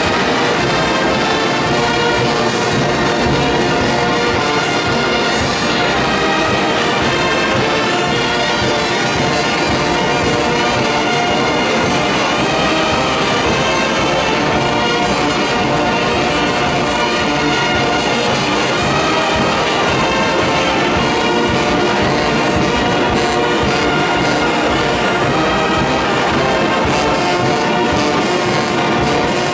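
Large brass band playing loud and steady, with trumpets, trombones and sousaphones sounding together.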